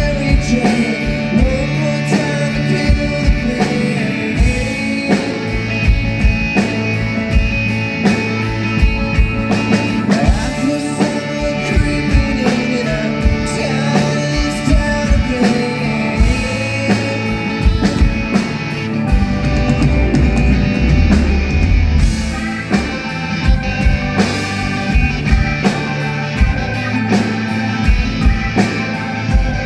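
Live rock band playing a song on drum kit and electric guitar, with singing over steady drum beats.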